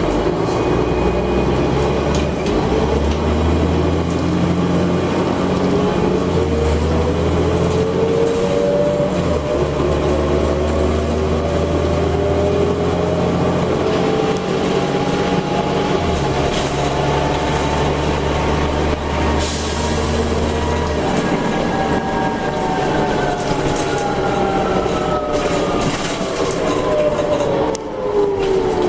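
Diesel city transit bus running under way: a steady engine drone beneath a whine that rises slowly and falls away near the end.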